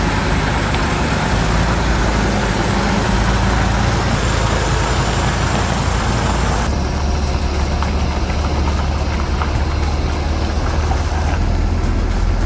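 Heavy machinery's engine running steadily with a strong low hum; the sound changes abruptly about seven seconds in.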